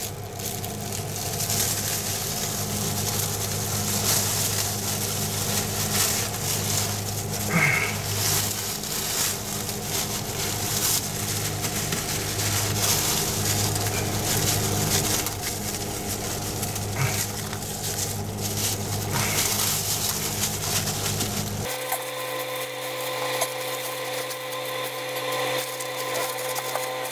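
A small electric motor running steadily: a low hum under an even, airy rush. About three-quarters of the way through, the sound changes abruptly as the low hum drops away.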